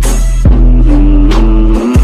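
Loud music with deep, steady bass, a held melody line and a couple of kick-drum thumps.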